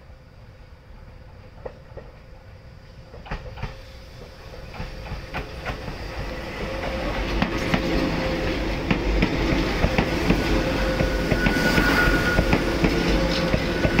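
Hakone Tozan Railway electric train (Moha 1-type car 108) approaching and passing close by. It grows steadily louder over the first half, with a rhythm of wheel clicks over the rail joints. A high steady tone joins about two-thirds of the way through.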